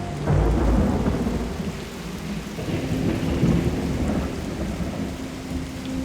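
Rolling thunder over steady heavy rain: a deep rumble breaks about a third of a second in, then swells again around three seconds in. A few faint, held electric piano notes sound under the storm.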